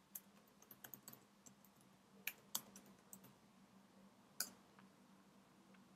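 Faint keystrokes on a computer keyboard, typed in short irregular clusters with a few sharper clicks, over near silence.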